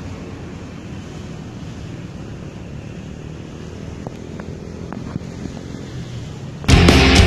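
Wind rumbling on the microphone outdoors, a low, unsteady noise. Near the end, loud heavy rock music cuts in suddenly.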